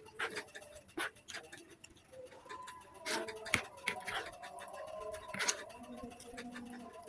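Someone eating from a plate: irregular clicks and scrapes of a spoon against the plate, with chewing.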